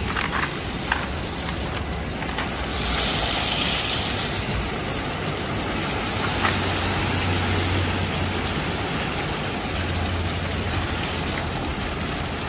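MacNeil tunnel car wash running: tall vertical side brushes spinning against a car amid water spray and machinery, a steady rushing noise. A brighter hiss swells for about a second, about three seconds in, and a low hum comes and goes.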